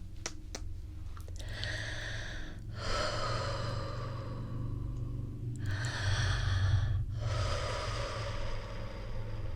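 Close-miked slow, deep human breathing: two full breaths, each a shorter breath followed by a longer one.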